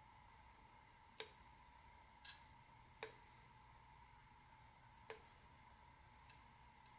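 A pump oil can clicking as it is squeezed to oil the crankshaft: three sharp clicks about two seconds apart, with a softer one between the first two, over near silence with a faint steady hum.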